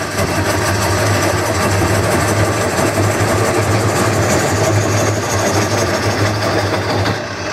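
Wood lathe running with a turning tool cutting into the spinning bowl blank: a steady motor hum under a rough scraping hiss. Near the end the hiss thins out while the hum goes on.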